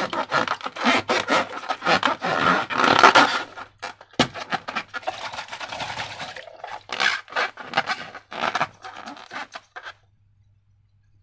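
Slime being worked by hand: a dense, irregular run of squishing and scraping sounds, with one sharp click about four seconds in. It thins out in the second half and stops near the end.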